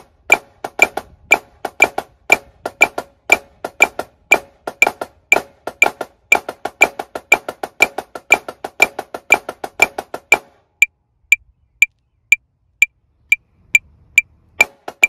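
Marching snare drum played with sticks in a flam accent exercise, locked to a metronome clicking about twice a second. About ten seconds in the drumming stops and only the metronome clicks go on for about four seconds, then the drumming starts again.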